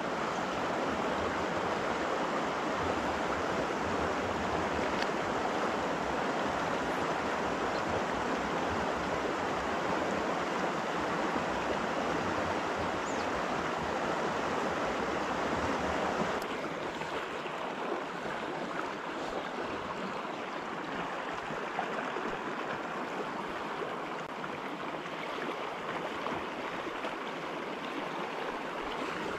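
River current rushing over a shallow, rocky riffle: a steady wash of water noise, a little quieter and thinner from about halfway through.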